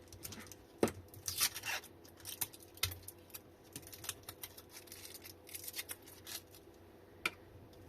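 Irregular small clicks, scrapes and rustles of a lithium-ion battery pack and its wiring being handled during a teardown.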